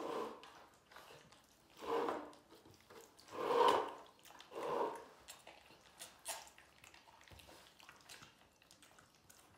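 Tiger cubs eating raw meat: wet chewing, tearing and licking, with four louder wet bursts in the first five seconds, the loudest about three and a half seconds in, then quieter smacking.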